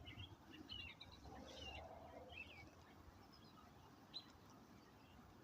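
Faint songbird song: several short warbled phrases in the first two and a half seconds, then a single sharp high note about four seconds in.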